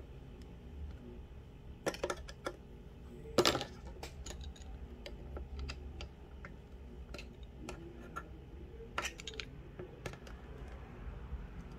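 Scattered small clicks and taps of plastic drone parts being handled and fitted, loudest about three and a half seconds in, with a cluster near two seconds and another near nine, over a faint low hum.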